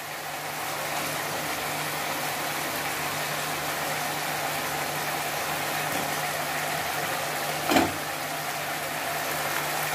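Spiced gravy with fried koi fish simmering in a kadhai on a gas burner: a steady hiss over a low constant hum, with a single knock near the end.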